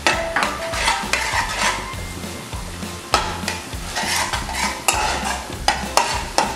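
A spatula stirring and scraping onions and freshly added ground garam masala frying in ghee in a pan, with a steady sizzle. Sharp scrapes against the pan come roughly once or twice a second.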